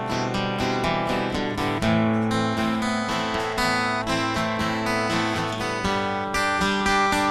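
Two acoustic guitars strumming chords in a steady rhythm, without vocals.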